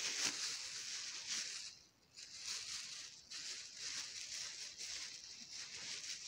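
Thin plastic produce bags crinkling and rustling as they are handled, in uneven patches with a short lull about two seconds in.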